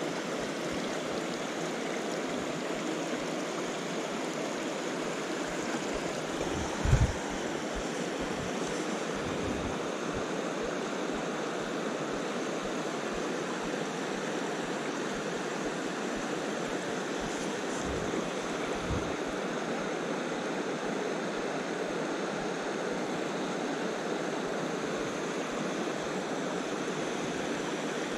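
Small moorland stream rushing steadily over rocks and a little fall. A brief low thump about seven seconds in, with two fainter ones later.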